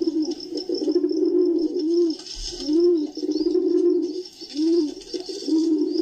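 Pigeons cooing: a steady run of low coos broken by repeated rising-and-falling notes, with fainter high chirps of small birds behind them.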